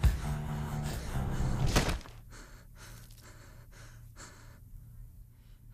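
Background music with held low notes cuts off abruptly about two seconds in. After it, a person breathes in quick, short, faint breaths, about three a second.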